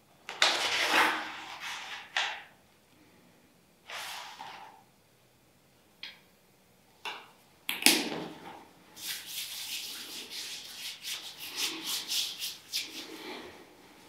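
Rustling and rubbing from hands handling something. There are a few separate scrapes in the first half, then a quick run of crinkling rustles from about nine seconds until near the end.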